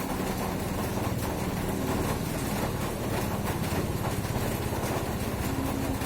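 A person snoring, a low fluttering rattle, over a steady hiss of rain.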